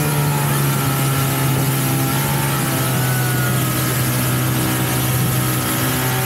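Motorboat engine running at a steady cruising speed, its note constant throughout, over the hiss of the boat's wake.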